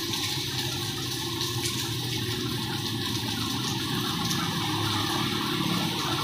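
Rain pouring steadily, an even hiss with a low rumble underneath.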